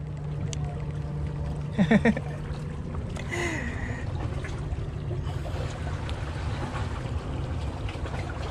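Steady low rumble of wind and sea at a seawall, with a single short spoken word about two seconds in.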